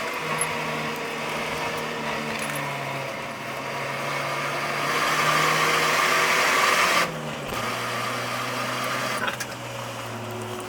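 Nissan S13 240SX's four-cylinder engine pulling at steady revs, with heavy road and tyre noise. About seven seconds in the level cuts away sharply and the engine note falls to a lower pitch, then a short click is heard near the end.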